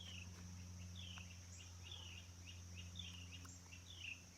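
Faint outdoor ambience: a bird repeating a short falling chirp about once a second, with fainter notes between, over a steady high insect drone and a low hum.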